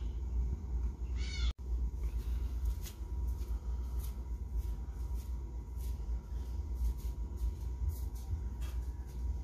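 Steady low hum with scattered light knocks and footsteps as a person walks across a concrete floor. There is a brief high wavering cry about a second in.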